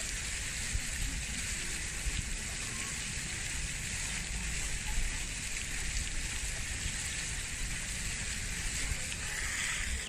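Steady outdoor background noise: an even hiss with a low rumble underneath, unbroken and without any clear calls or voices.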